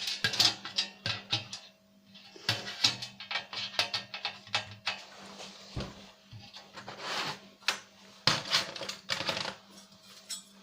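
Irregular clicking and clattering of plastic and metal parts of a DVD player being handled and pulled apart by hand, with a faint steady hum underneath.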